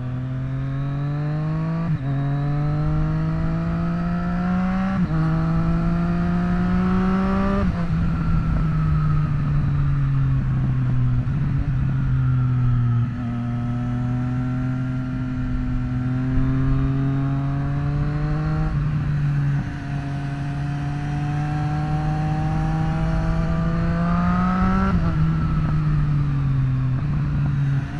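2024 Triumph Street Triple RS's 765 cc inline-three engine running through a Zard titanium slip-on exhaust, accelerating through the gears. The pitch climbs and drops back at three quick upshifts in the first eight seconds, then eases off. After that it pulls up again in long, slower climbs, with another shift near the end.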